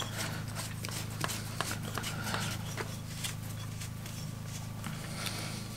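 Handling noise from screwing a stainless mesh strainer into a blue plastic pipe fitting: scattered small clicks and rustles. A steady low hum runs underneath.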